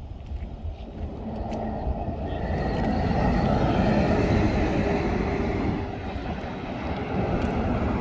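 Semi-truck tractor-trailer passing at highway speed: the engine and tyre noise swells, is loudest about four seconds in, then eases off.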